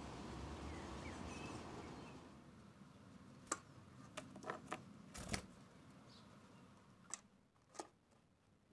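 Faint outdoor background with a few short bird chirps, which drops away about two seconds in. It is followed by a series of about seven sharp, irregular taps and clicks over the next four or five seconds.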